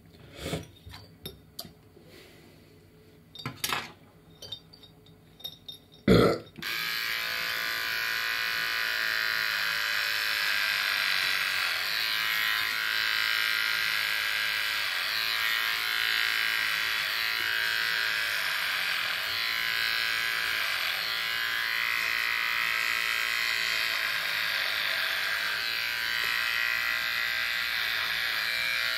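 A few clicks and knocks of handling, then a corded electric hair clipper switches on about six seconds in and buzzes steadily, its tone wavering slightly as it cuts through hair.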